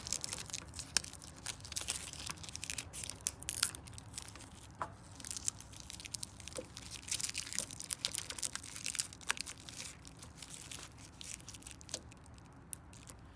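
Thin clear plastic protective film crinkling and tearing as it is picked and peeled by hand from around a smoker's control-panel knob: many small, irregular crackles, thinning out near the end.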